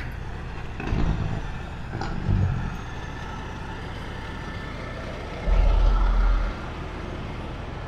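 Steady sound of semi trucks idling nearby. Low rumbling bumps on the microphone come about a second in, around two and a half seconds, and a louder one lasting about a second from five and a half seconds in.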